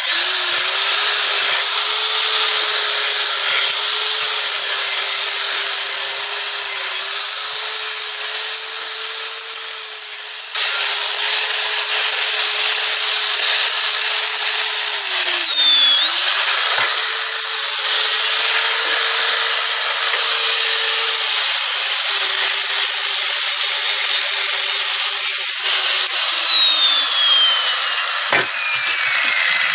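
Angle grinder fitted with a nearly worn-out flap disc, grinding the corners of a metal tractor drawbar. Its motor whine holds steady, sags briefly about halfway through as it bites, then is switched off near the end, its pitch falling as it winds down.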